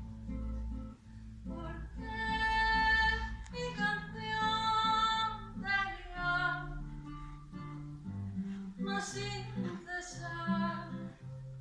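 A song: guitar accompaniment with a voice singing long held notes.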